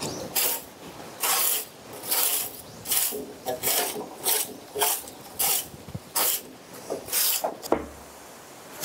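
Repeated rasping, scraping strokes, about a dozen at an uneven pace of one to two a second, stopping shortly before the end.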